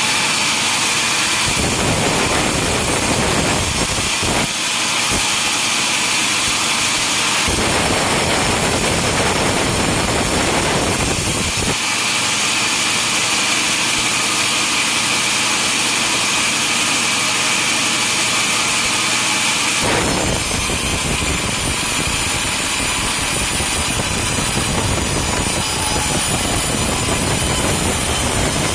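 Sawmill machinery running and a saw cutting through timber, a loud continuous mechanical noise. Its character changes abruptly about five times, swapping between a hissing high-pitched cut and a fuller, lower rumble.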